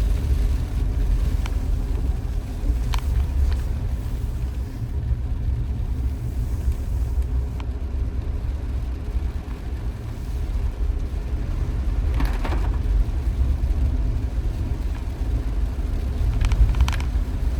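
Maruti Suzuki Jimny driving on the road: a steady low rumble of engine and road noise, with a few faint ticks and a brief swish.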